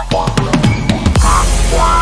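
Background music with drums. A falling swoop drops into a louder hit about a second in.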